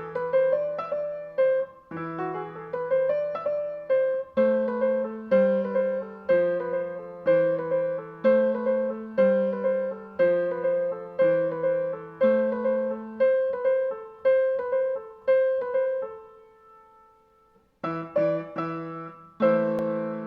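Piano music: quick rising runs open into a steady pulse of a repeated high note over changing bass notes. It fades away briefly, then resumes with chords near the end.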